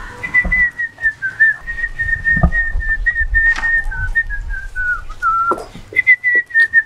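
A person whistling a tune: one high wavering note line that steps about and drifts slowly lower, breaking off briefly near the end before starting again. A few soft thumps sit underneath.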